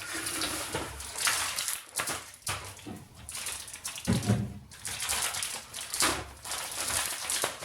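Rustling and knocking of items being moved around and set on the shelves of a mini fridge, in uneven bursts with a few sharp taps.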